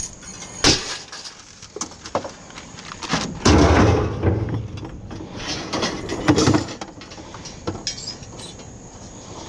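Scrap metal being handled: irregular clanks, knocks and scraping, with a sharp knock about a second in and a louder, longer rattle a little before the middle.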